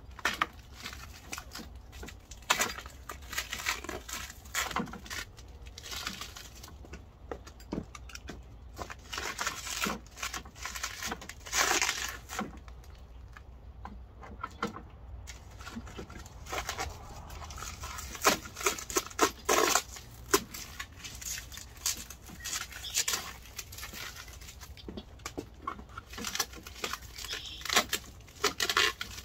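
Plastic and paper packing material crinkling and tearing as it is pulled off a new walk-behind lawn mower's handle, with scattered clicks and knocks from handling the parts. The sounds come in irregular bursts, with a short lull about halfway.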